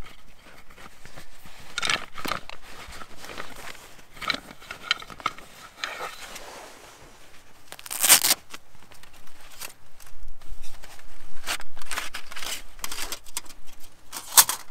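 Handling and rustling of camping gear: canvas pack, straps and buckles. About eight seconds in, a loud rip as a velcro flap on a fabric pouch is torn open, and near the end a short rasp as a folding metal stove box is slid out of the pouch.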